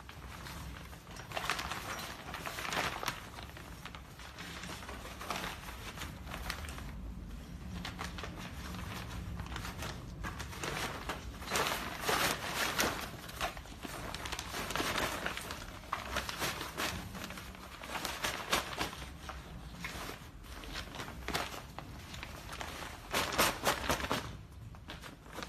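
Fabric rustling and crinkling in irregular bursts as a folded canopy camping chair is pushed into its cloth carry bag, louder for a moment about twelve seconds in and again near the end.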